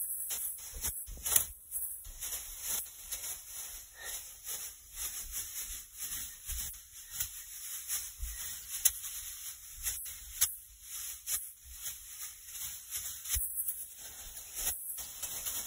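Cheerleading pom-poms shaken hard, a continuous crinkly rustle of streamers that swells and fades with each shake. A few sharper swishes stand out.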